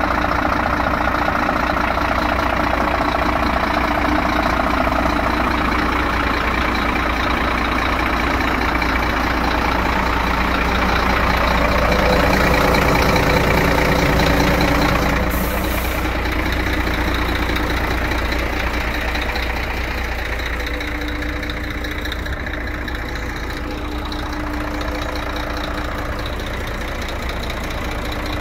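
Scania P380 tractor unit's diesel engine idling steadily.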